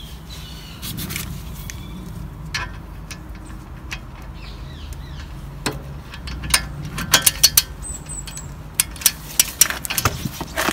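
Ratchet with a 7 mm hex bit socket working a brake caliper guide bolt, its pawl clicking in quick runs in the second half, after a few scattered metallic knocks as the bit is seated.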